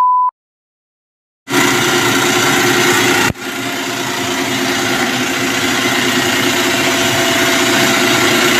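A short steady test-tone beep, then silence until about a second and a half in. Then a water-filtration setup's pump motors start running with a steady hum and whine, which drops out briefly a little past three seconds.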